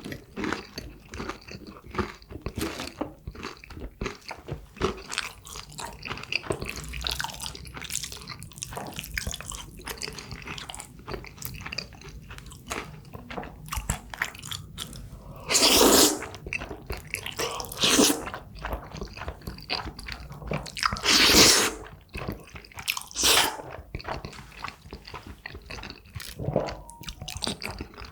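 Close-miked eating: a man chewing and crunching jjajangmyeon and crispy tangsuyuk, in dense small crackles. Four louder, longer noisy sounds come in the second half.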